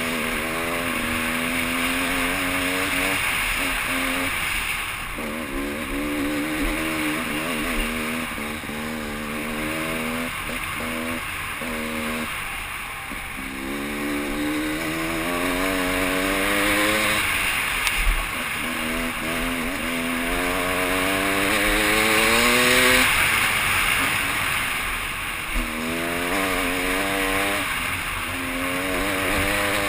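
Enduro dirt bike engine under way, revving repeatedly: the engine note climbs in pitch, drops off with throttle and gear changes, then climbs again, over a steady rush of wind noise. One short knock partway through.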